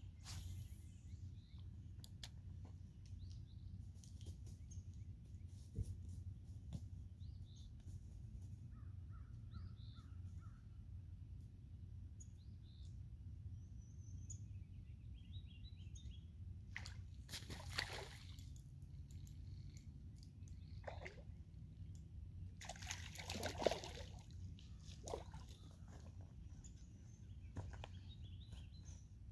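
Faint outdoor ambience by a lake: a steady low rumble with scattered distant bird calls, and two brief rustling noises, one about halfway through and one about three-quarters through.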